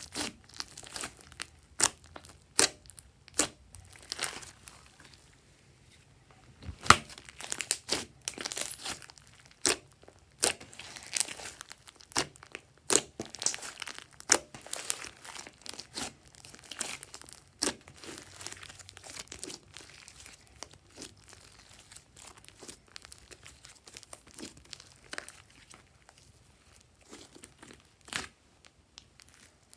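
Slime being squeezed and stretched by hand, making irregular sticky clicks, pops and crackles. The loudest snap comes about seven seconds in, and the popping grows fainter and denser toward the end.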